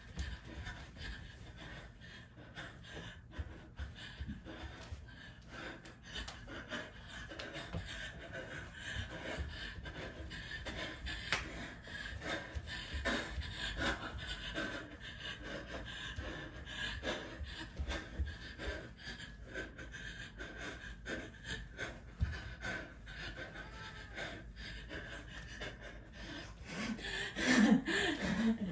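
A woman panting heavily as she dances, with her bare feet thudding and shuffling on the floor in quick irregular steps. Near the end she breaks into loud laughter.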